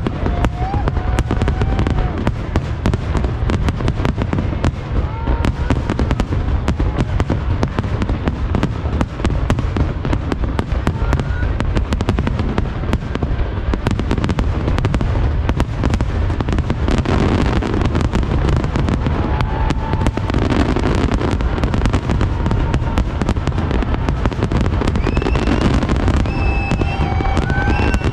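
Aerial firework shells bursting in a dense, continuous barrage of booms and crackles, with a few short rising whistles over the top.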